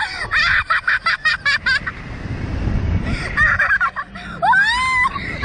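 Two riders on a Slingshot reverse-bungee ride laughing in quick high-pitched bursts, then letting out a couple of rising-and-falling shrieks near the end, with wind rushing over the microphone as the seat capsule swings.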